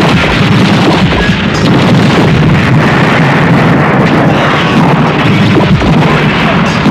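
Action-movie explosion sound effects: a dense, loud, continuous blast and rumble, crowded with many sharp cracks.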